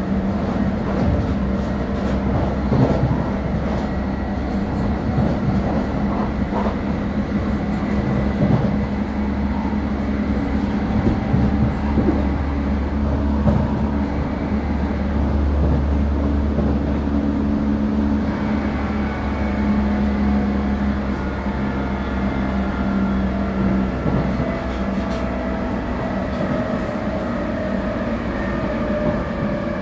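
1996 Tube stock train heard from inside the car at speed: steady wheel and track rumble under a constant traction-motor whine. A little over halfway through, several whining tones start to fall slowly in pitch as the train brakes regeneratively, a harsh sound that the uploader takes for worn-out regenerative brake control gear.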